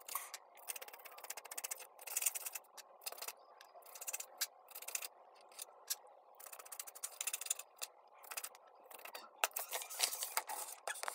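Paintbrush scrubbing and dabbing on watercolour paper, a run of scratchy clicks and scrapes that grows busier near the end as the paper is handled.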